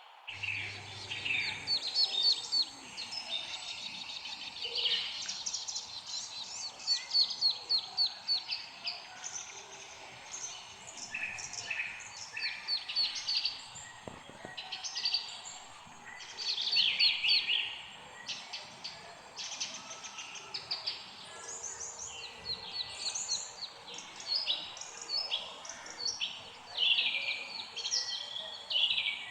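Several songbirds chirping and singing, overlapping with quick runs of repeated high chirps and trills, over a faint steady background hiss.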